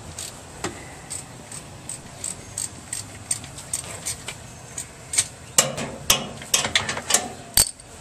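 Hand tool working the bolts on a washing machine's motor, with metal clicking. The clicks come a few a second at first, then turn into a faster, louder run of clicks and knocks near the end, closing with one sharp knock.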